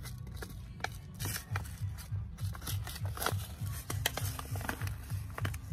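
Paper seed packet crinkling and crackling in small hands as it is handled and worked open, a string of short sharp crackles throughout.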